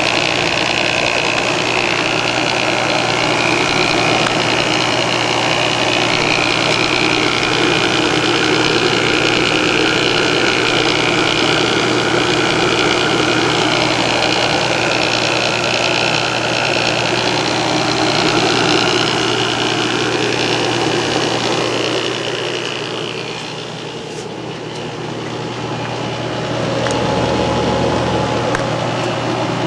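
1980 General Electric 5,000 BTU window air conditioner running, its rotary compressor humming steadily under the rush of the fan, sounding a little shaky. The sound drops for a couple of seconds about three-quarters of the way through, then picks back up.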